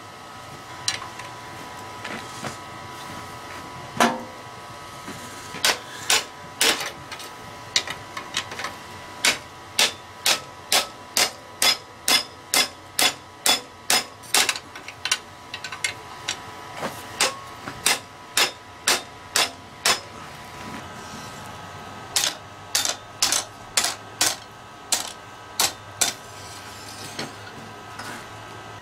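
Hand hammer striking red-hot mild steel flat bar, bending it around a ring-shaped bending jig and over the anvil horn. A few scattered blows give way to steady runs of about two blows a second, with a short pause about two-thirds of the way through. A faint steady hum sits underneath.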